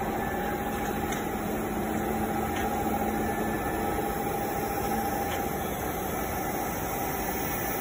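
Automatic longitudinal seam welding machine running a weld along a tube seam: a steady noise of the torch arc and machine at work, with a faint low hum that stops a little over halfway through.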